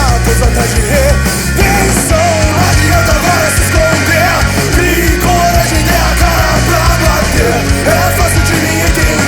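Loud punk rock music with a wavering melody line over a steady low bass.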